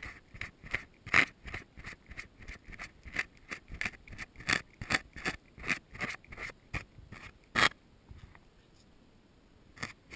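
A cat licking close to the microphone: quick rasping strokes of its tongue, about three or four a second, which stop for about two seconds near the end and then start again.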